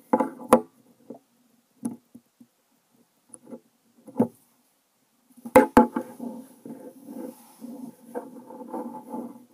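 Knocks and taps of a Lego minifigure and fingers on a wooden tabletop close to the microphone, two sharp ones in quick succession about halfway through. A low rumbling noise follows for the last few seconds.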